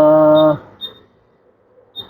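A man's voice holding a long drawn-out syllable, which stops about half a second in. Then it is quiet except for two brief, faint high beeps, one near the middle and one at the end.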